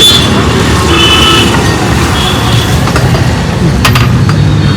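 KTM Duke 390 ridden on the road: steady engine rumble mixed with road and wind noise, with a few brief high beeps from traffic around a second in.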